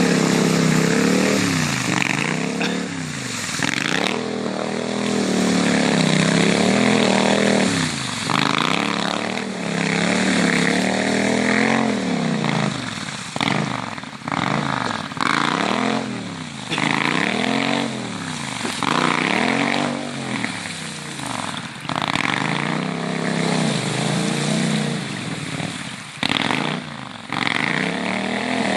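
Triumph Scrambler's parallel-twin engine revving up and falling back again and again, in swells a few seconds long, with brief drops in between.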